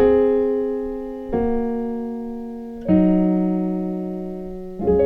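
Piano chords played slowly one at a time: four chords struck about a second and a half apart, each held and fading before the next. The chords step through a gospel 6-to-2 movement in D flat.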